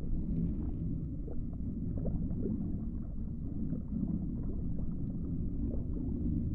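Underwater ambience sound effect: a steady low rumble with faint, scattered bubbling.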